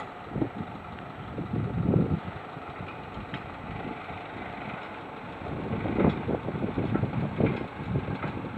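A loaded medium-duty truck's engine running as it pulls slowly away along a dirt road, with wind buffeting the microphone in gusts, strongest about two seconds in and again around six seconds.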